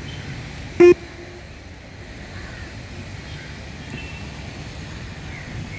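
One short electronic beep from the beep test (multistage shuttle run) recording, about a second in, marking the end of a shuttle. Steady low background noise around it.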